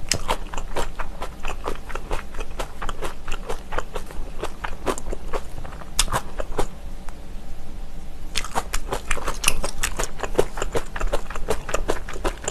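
Close-miked wet crunching and smacking of a mouthful of kimchi being chewed, a dense run of crisp clicks that thins out briefly just past the middle and then picks up again.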